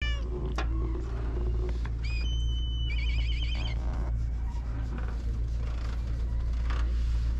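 A steady low rumble throughout. About two seconds in come a few short, high, whistling calls, the last of them a wavering trill.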